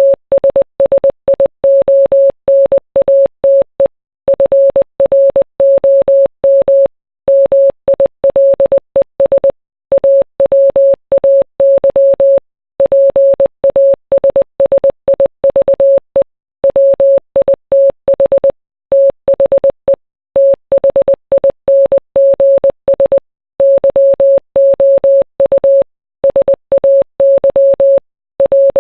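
Morse code: a single steady beep tone keyed on and off in quick short and long pulses (dots and dashes), with brief pauses between letters and words.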